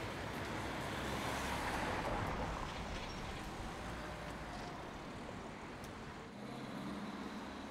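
Road traffic: a vehicle passes, loudest about two seconds in and fading slowly, over a steady low rumble.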